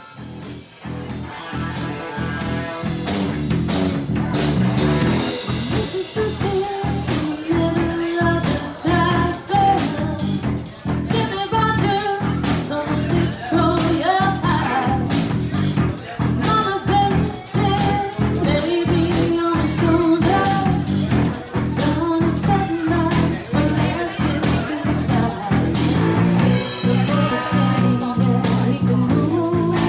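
A live band playing: a woman singing over electric guitar, electric bass and a drum kit keeping a steady beat. It comes in softly just after the start and builds to full level within a few seconds.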